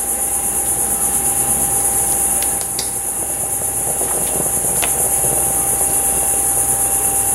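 Steady high-pitched insect chorus drones throughout, over a constant faint hum. A few light knife taps sound against a wooden cutting board as the fatty edges of pork chops are cut.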